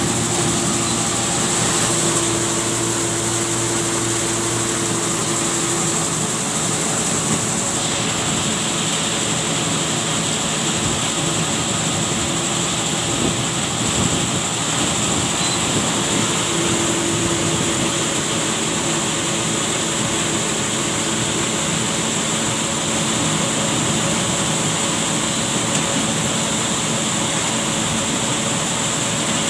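Farm machine running steadily: a continuous mechanical drone with a steady hum under a broad hiss, which brightens slightly about eight seconds in.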